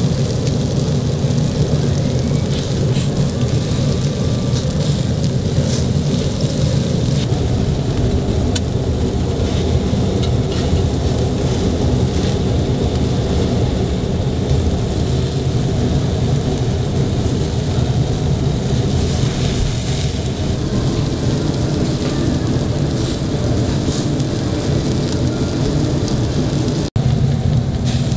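Skewered meat sizzling over a charcoal grill, fat crackling and popping, over a steady low rumble.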